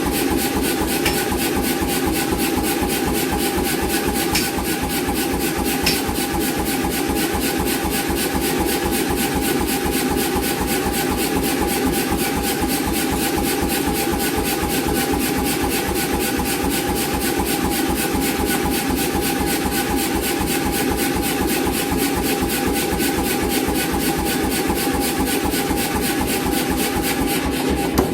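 88 lb C41 self-contained air power hammer running, its ram striking in a rapid, even run of blows over a steady motor hum.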